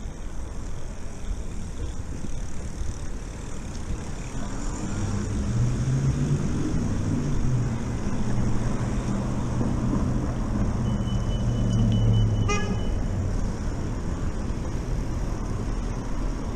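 A motor's steady low hum with overtones, rising slightly at first and then holding, over low wind rumble. A brief higher tone with a short rattle comes near the middle.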